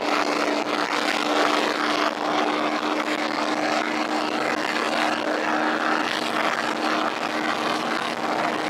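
Yamaha FZ150i's liquid-cooled single-cylinder engine, fitted with a 63 mm big-bore block, running at steady high revs while cruising at about 135 km/h with two riders and full luggage aboard. The even drone of the engine is mixed with a steady rush of wind and road noise.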